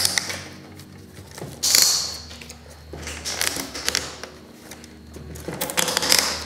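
Nylon zip ties being cinched tight around a fiberglass rod: quick ratcheting zips as each tail is pulled through its locking head. They come in about four short bursts, the loudest about two seconds in, over a low steady hum.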